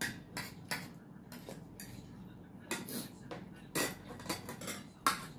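Spoons and forks clinking and scraping against ceramic plates and a soup bowl while eating: more than a dozen short, irregular clinks, the loudest near the end.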